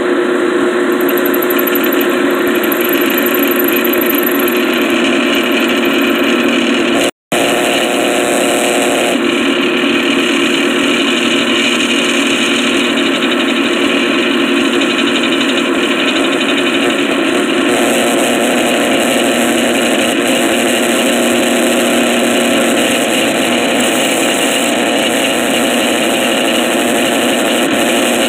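A drill running steadily as it bores a 1/8-inch hole through the steel log clamp end, with an engine running alongside. The sound cuts out for a moment about seven seconds in.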